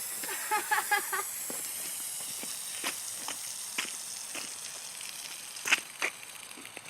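Coke-and-Mentos eruption hissing as foam sprays out through holes drilled in a 2-liter bottle's cap, the hiss slowly dying away. Scattered light clicks and taps.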